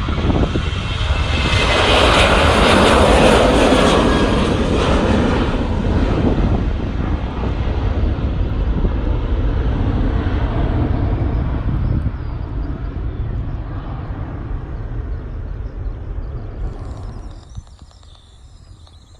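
An airliner passing close by, loudest a few seconds in, then fading away steadily over the next dozen seconds.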